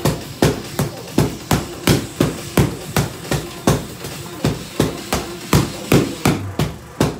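Pair of escrima sticks striking a hanging heavy bag in a double-stick drill: sharp smacks in a steady rhythm of about two and a half hits a second.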